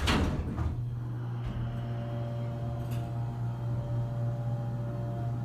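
Otis hydraulic elevator's power unit humming steadily, heard from inside the cab as the car travels, with a fainter whine joining about a second and a half in. The hum cuts off at the very end. A short burst of noise comes at the start.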